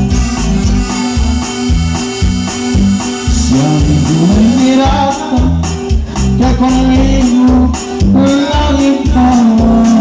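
A band playing Latin dance music with accordion over a steady bass and percussion beat.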